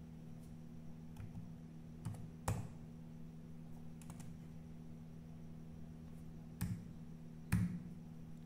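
Scattered keystrokes on a laptop keyboard: a handful of separate key presses, often a second or more apart, the loudest about two and a half seconds in, over a faint steady hum.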